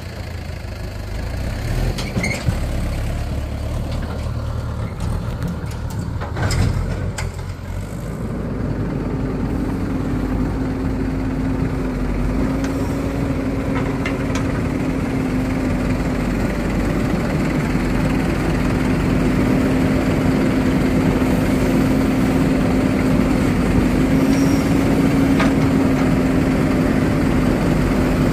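Diesel engines of a Mahindra tractor and a JCB 3DX backhoe loader running. A few sharp knocks come in the first eight seconds. Then the engine noise settles into a steady, higher drone while soil is loaded into the trolley.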